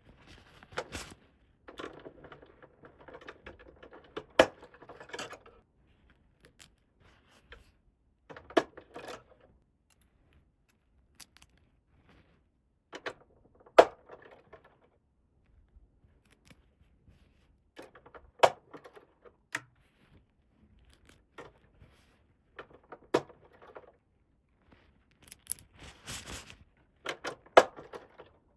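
Small hard plastic pieces being handled: sharp clicks and taps every few seconds, with brief rustling and scraping between them.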